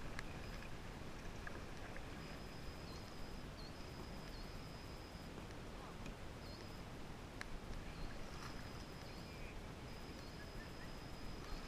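Double-bladed kayak paddles dipping into the water and dripping, over a steady low rush of water and wind noise, with a few light clicks.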